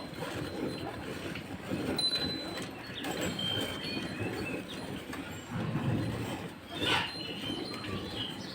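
Cow being milked by hand: a steady, rhythmic swishing of milk streams squirting into a bucket, with a brief louder knock about seven seconds in.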